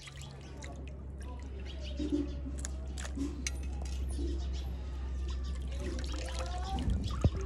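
Hands swishing and squeezing raw chicken livers in a shallow clay basin of water: splashing, dripping and trickling as pieces are lifted out and dropped back. There is a sharper splash near the end, over a steady low hum.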